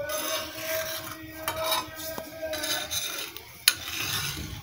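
Metal spatula scraping and pressing a flatbread against a hot iron tawa while it is turned to cook the other side, with a sharp clack of the spatula against the pan about three and a half seconds in.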